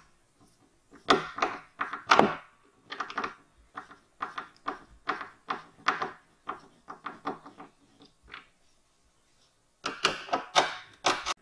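A knife blade scraping and prying at the rim of a black plastic septic tank lid, working it loose: a string of short scrapes and clicks, one or two a second, with a few louder ones near the end.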